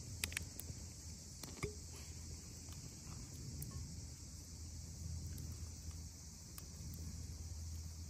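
A steady, high-pitched chorus of insects, with a low hum beneath it and a few sharp clicks in the first two seconds.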